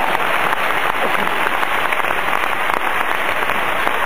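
Indoor arena crowd applauding steadily, a dense patter of many hands clapping.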